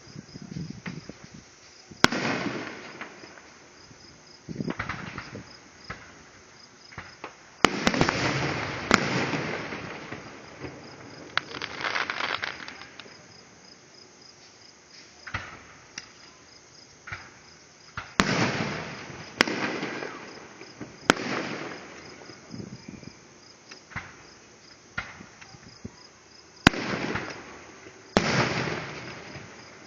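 Fireworks going off: sharp bangs every few seconds, each trailed by about a second of crackle and rumble, with a quick run of three bursts a little past halfway.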